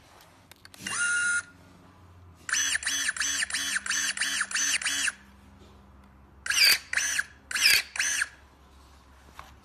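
Kingson cordless electric pruning shears: the motor whines in short strokes as the blade is driven shut and open, about ten quick strokes at roughly four a second, after a short steady whine about a second in. Near the end come four separate strokes, each rising and falling in pitch, as the blade cuts into a branch.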